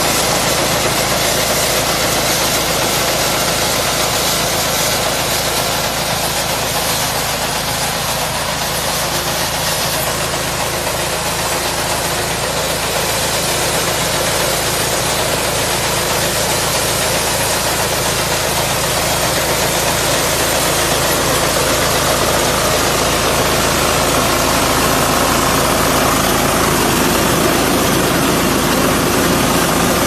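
Small walk-behind rice combine harvester running steadily while it cuts and threshes standing rice: a loud, even mechanical noise of its engine and threshing drum.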